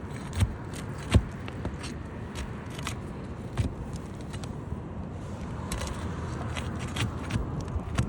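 Asphalt roof shingles being worked loose and pulled out: scraping and crackling with scattered clicks and knocks, the sharpest about a second in.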